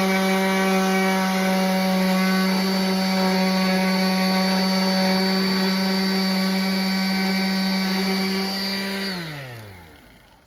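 Power sander running steadily against wood, with a strong even hum over a rubbing hiss. About nine seconds in it is switched off and its pitch falls as it winds down.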